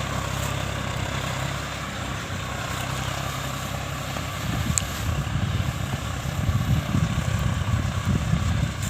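John Deere 5050D tractor's turbocharged diesel engine running steadily while ploughing, with a low drone that grows louder and more uneven about halfway through.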